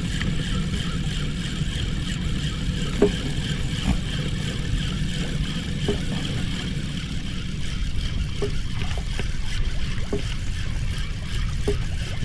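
Spinning reel being cranked while a hooked fish is reeled in, with a few faint clicks, under a steady rushing noise of water and wind around a small boat.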